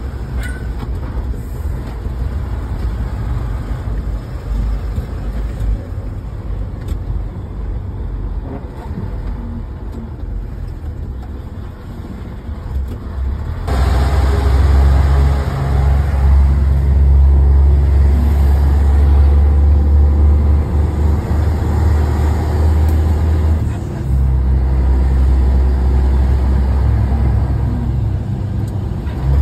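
Truck engine and road noise heard from inside the cab: a steady low rumble that jumps suddenly louder about fourteen seconds in.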